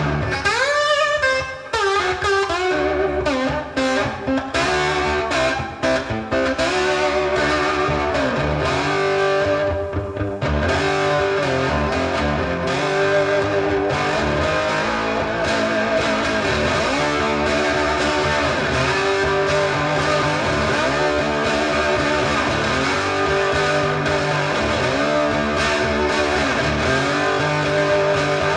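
Blues music led by electric guitar with bent notes over a steady bass line, played back through Eosone RSF-1000 4-way loudspeakers.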